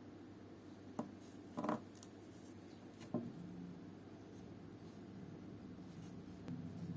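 A few small clicks and a brief scrape from watchmaking tools and small parts being handled on the bench, over a faint steady hum: one click about a second in, the scrape just after, the loudest sound, and another click about three seconds in.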